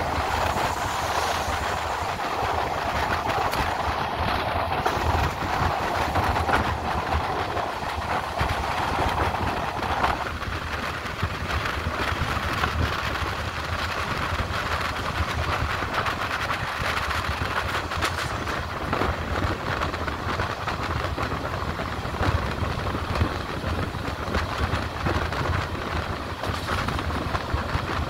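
Passenger train heard from on board while running along the line: a steady low rumble and rolling noise, with clicking from the wheels on the track. A mid-pitched hum that is heard over this stops abruptly about ten seconds in.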